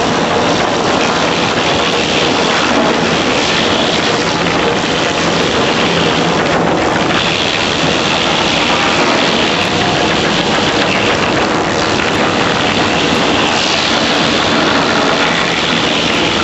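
A 70-inch wastewood chipper running, a loud, steady mechanical din with a low hum under it.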